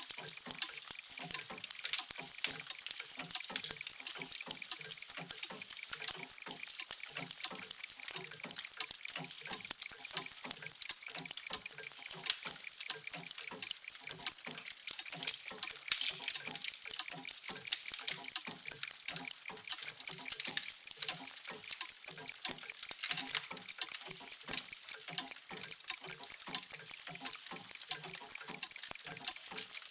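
Many mechanical clocks ticking at once: a dense, overlapping mass of sharp ticks, many a second, with no single rhythm.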